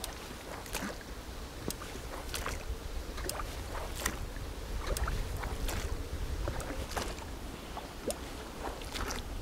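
A small hunting boat being moved by hand along a marsh channel: irregular splashes, knocks and scrapes of the strokes through water and vegetation. A steady low wind rumble sits on the microphone underneath.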